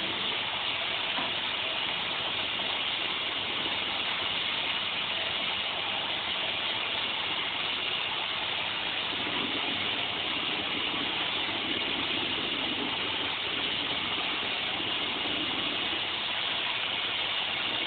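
iRobot robotic vacuum cleaner running steadily, its motor and brushes making an even whirring hiss, a little fuller and lower for a few seconds in the middle.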